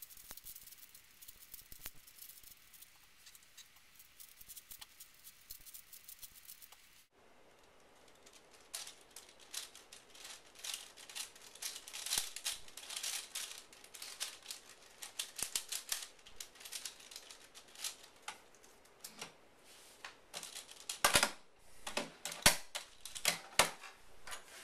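Plastic 5x5 Rubik's cube being turned by hand, a run of quick clicking and clacking layer turns, faint at first and louder and busier from about seven seconds in. Near the end come a few louder knocks as the cube is set down on the wooden desk.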